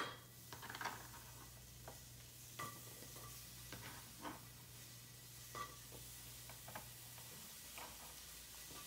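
Sliced mushrooms being pushed by hand off a plastic cutting board into a frying pan: a scatter of faint light taps as the pieces drop in. Under them runs a faint frying sizzle, and a low steady hum stops near the end.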